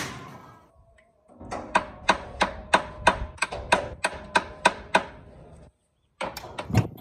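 Hammer blows on metal, about three a second, each with a short metallic ring, about a dozen in a row; after a brief pause a second quick run of blows near the end.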